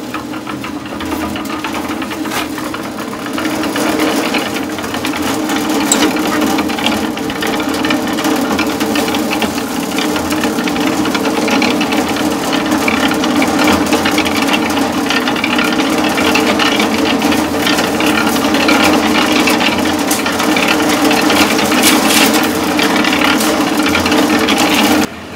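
Portable cement mixer running, its drum turning with water and a little gravel churning and rattling inside, which keeps the paddles and the inside of the drum from caking with concrete between loads. A steady hum with constant clatter that cuts off abruptly just before the end.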